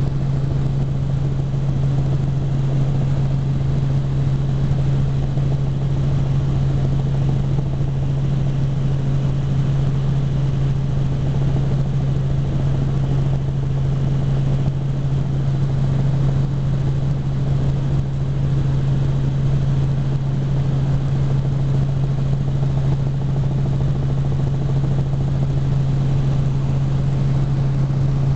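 Helicopter engine and rotor noise heard from inside the cabin in flight: a steady, unchanging drone with one strong low hum under a wash of noise.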